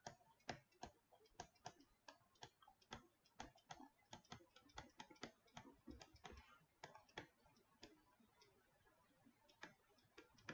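Faint, irregular tapping and clicking of a stylus on a tablet screen as numbers are handwritten, several taps a second, with a pause of about two seconds past the middle.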